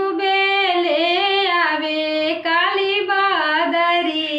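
A woman singing a Chhath folk song with no accompaniment, in a high voice of long held notes that glide up and down. There is a short break for breath about two and a half seconds in.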